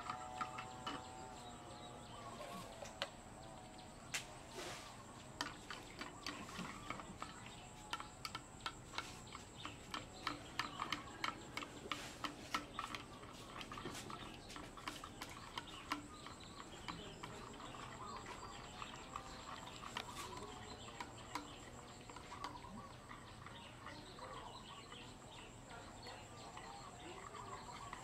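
Metal spoon stirring in a plastic cup, a quick run of light clicks and scrapes against the cup wall, busiest in the middle. A few faint chirping calls come in now and then.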